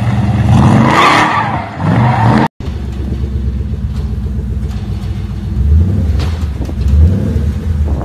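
An engine revving hard with tyre squeal, in a smoky burnout, for the first two and a half seconds, then a sudden cut. After the cut, a 1970s Ford F-series pickup's engine runs low and steady as the truck rolls off, with two brief rises in revs.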